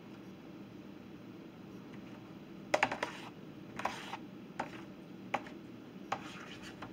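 Scattered sharp clicks and light taps on a plastic tub as hands work slime inside it, a quick cluster of clicks about three seconds in and single ones after.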